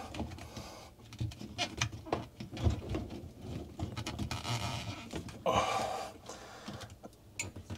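Garbage disposal being turned on its metal mounting ring: scattered clicks and knocks of the housing against the ring, with a short breathy rush about five and a half seconds in.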